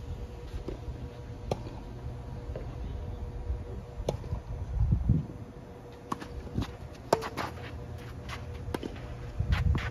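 Tennis ball struck by rackets and bouncing during a rally, a series of sharp pops a second or two apart, over a steady low rumble and a faint hum.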